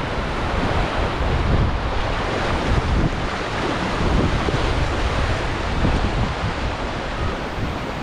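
Sea surf washing onto a beach, a steady rush, with wind buffeting the microphone in irregular low gusts.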